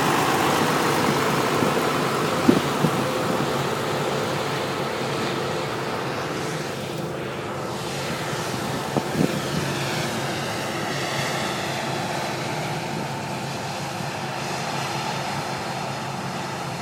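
Claas Lexion 600 combine harvester running steadily, its engine and threshing gear a continuous mechanical drone that slowly fades. There are a couple of short knocks, one about two and a half seconds in and another about nine seconds in.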